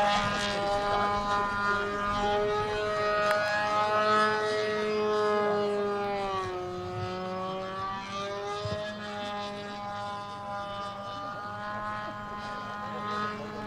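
Combustion engine of a FunFlyer RC model airplane running at high revs in flight, a steady high-pitched buzz. Its pitch dips about six seconds in and climbs back, and it grows a little fainter toward the end.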